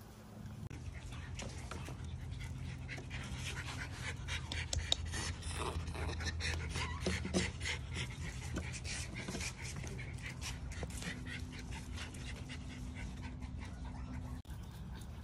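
Miniature Schnauzer puppy panting, with frequent rustles and clicks of movement on its bedding, over a steady low hum.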